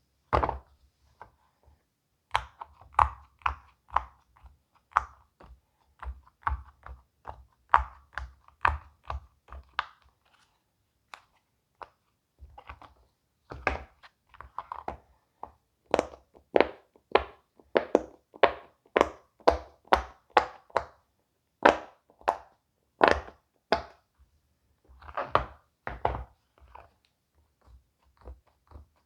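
Silicone pop-it fidget toy bubbles being pressed down one after another: a run of short, soft pops, about two a second, with a pause of a couple of seconds partway through.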